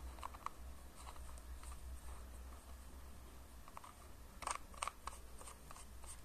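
Small clicks of an Mlife M120S box mod's buttons being pressed: a couple just after the start and a louder cluster of three or four about four and a half seconds in.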